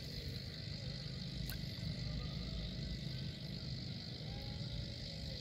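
Steady outdoor background noise at a lake bank: a low rumble with a faint high hiss over it, and a single light click about a second and a half in.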